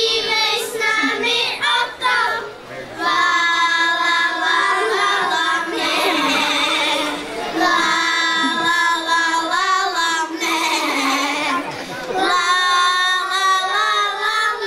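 Children singing a song in long held notes, phrase after phrase, with a short pause between phrases near the end.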